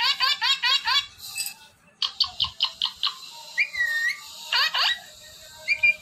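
Parrot calls: a fast run of short repeated chirps at the start, another run about two seconds in, and a couple of gliding whistles near the middle and the end.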